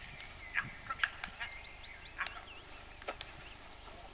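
Small birds chirping in short, scattered calls, with a few sharp clicks among them.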